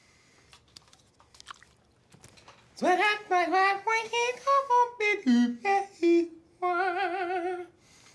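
Vocal sound effects made with the mouth: a few soft clicks, then about three seconds in a loud pitched voice sliding up and down in short bursts, ending in a held, wavering note.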